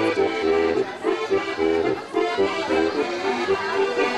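Accordion playing an Alpine folk dance tune for Schuhplattler dancers, chords over bass notes that come about every half second in an oom-pah pattern.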